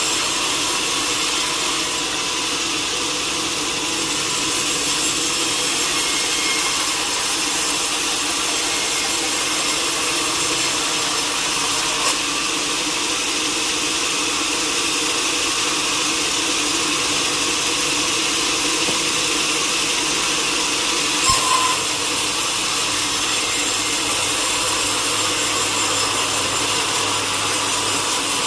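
Sawmill saw cutting through a log, a steady, dense, high-pitched sawing noise that runs without a break. Two short knocks stand out, one near the middle and one about three-quarters of the way through.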